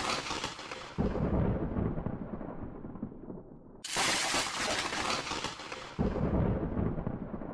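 A thunder-like crash sound effect, played twice: each time a sudden burst of hiss fades away over a few seconds, with a low rumble coming in about a second later.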